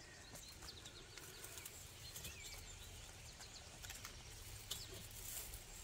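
Faint outdoor quiet with a few scattered bird chirps, and light rustling and clicks as a potted tomato plant is handled and moved in its straw-mulched bucket.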